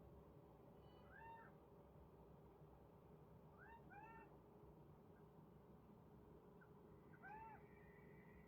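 Kitten giving short, high-pitched meows, one about a second in, two close together about four seconds in, and one more near the end.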